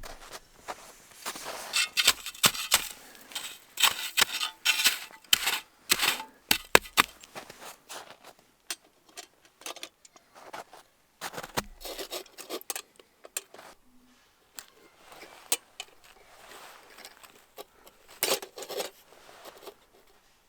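Close-up handling noises: a rapid run of sharp clicks, taps and short scrapes or rustles, busiest in the first several seconds, then sparser with scattered clicks.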